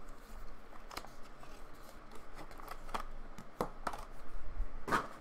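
Hands opening a trading-card pack: the plastic wrapper rustles and crinkles, broken by a handful of sharp snaps and clicks, the loudest near the end.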